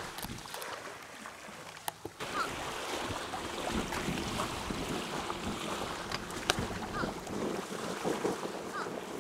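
Small waves lapping on a sandy shore, with wind buffeting the microphone and a few sharp clicks.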